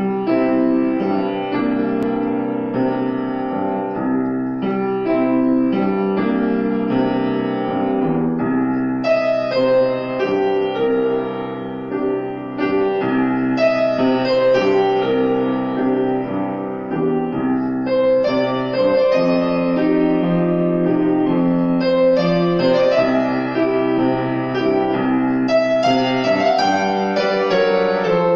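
Grand piano played solo: a continuous run of notes and chords.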